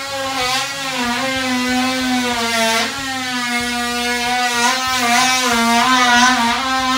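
A motor's steady whine, holding one pitch that wavers slightly throughout.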